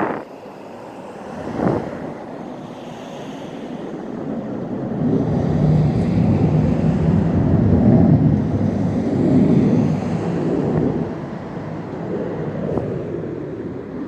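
A loud low rumbling roar from the sky, like a jet or rocket, swelling over several seconds, peaking about halfway through and then easing off; whether it is thunder or something else is unknown. Two short blasts of wind hit the microphone near the start.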